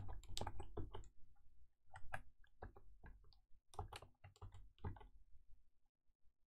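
Computer keyboard being typed on: a faint, irregular run of key clicks that thins out and stops about five and a half seconds in.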